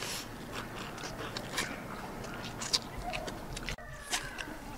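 Close-up eating sounds: chewing and gnawing on pieces of salted duck on the bone, with scattered small clicks from chopsticks and bowls.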